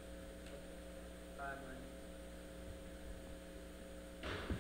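Steady electrical mains hum over quiet room tone. A brief faint voice is heard about a second and a half in.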